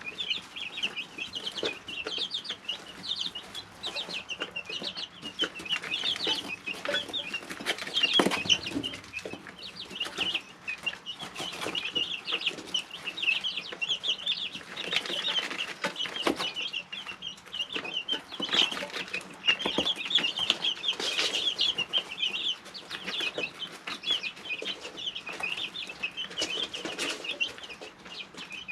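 A brooder full of three-week-old chicks peeping without pause: many short, high cheeps overlapping into a steady chorus. Scattered clicks run through it, and there is a louder flurry about eight seconds in.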